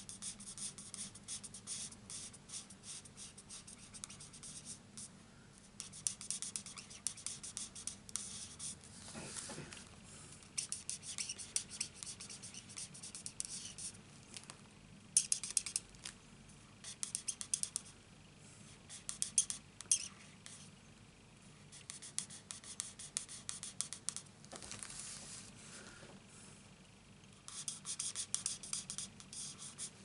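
Felt tip of a Stampin' Blends alcohol marker scratching across cardstock in bursts of quick short strokes, with short pauses between the bursts, as small areas are coloured in.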